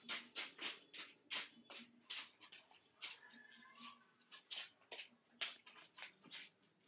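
Soft rustling and scuffing as baby macaques shift about on cloth bedding and diapers: a quick run of short rustles, about two or three a second, with a faint thin chirp near the middle.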